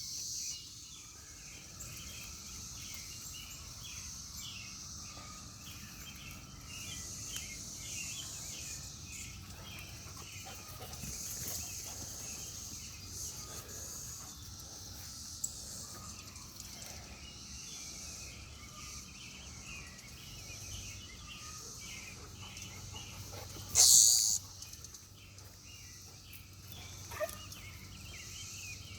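Cicada chorus: a steady high-pitched buzz that swells and fades, with many short chirps lower down. About 24 seconds in, a sudden loud rasping burst of under a second stands out above it.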